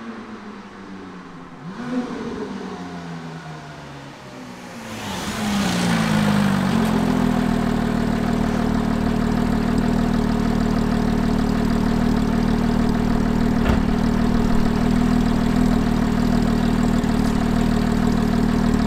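Porsche 997.1 GT3 RS with its 3.6-litre Mezger flat-six and centre-muffler-delete exhaust approaching, engine note falling as it slows, with a short blip of revs about two seconds in. It pulls up close and from about six seconds in idles steadily.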